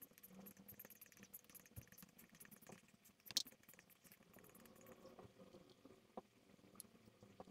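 Near silence: faint room hum with scattered small clicks, and one sharper click about three seconds in.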